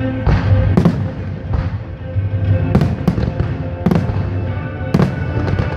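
Aerial fireworks shells bursting, a string of sharp bangs roughly a second apart, with music playing underneath.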